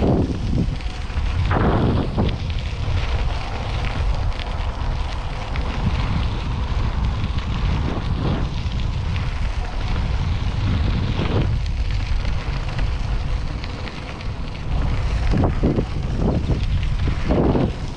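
Wind buffeting the microphone of a camera on a moving bicycle: a loud, gusting low rumble.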